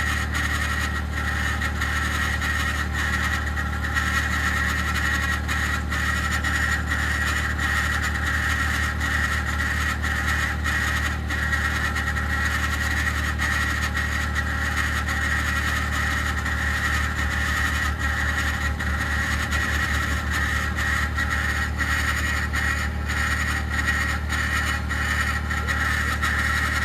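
2021 Ford F-150 PowerBoost idling after a cold start in deep frost, with a steady grinding, cavitating whir like a fan hitting a housing. It is a cold-weather noise, appearing only at about minus 11 °C and below, that the dealership has not diagnosed.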